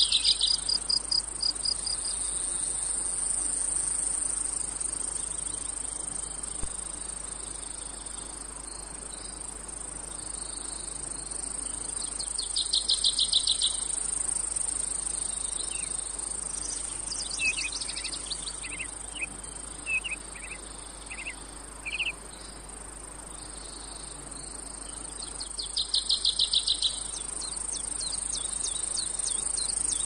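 Chorus of cicadas in a steady, high-pitched drone, with a loud, rapidly pulsing trill three times (at the start, near the middle and near the end) and a run of short chirps in the second half.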